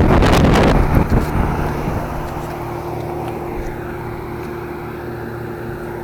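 Lennox outdoor air-conditioner condensing unit running: a steady hum from the compressor and fan. A loud rush of air noise in the first second, then the hum settles and slowly grows quieter.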